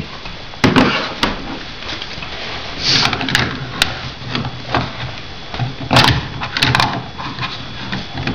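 Hard plastic toy cookware and a plastic shaker knocked and set down on a plastic toy kitchen stovetop: scattered clacks and clatter.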